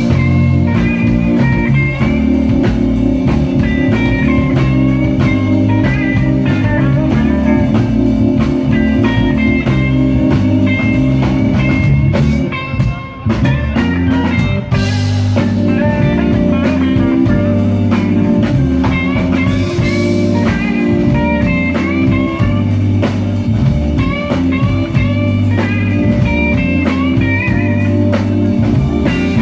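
Live electric blues band playing an instrumental passage: electric guitar lead lines over bass and drums.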